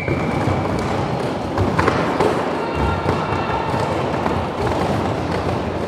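Quad roller skate wheels rolling and scraping on a sports hall floor as a pack of roller derby skaters jostle and block, with thuds of bodies and skates and voices echoing in the hall.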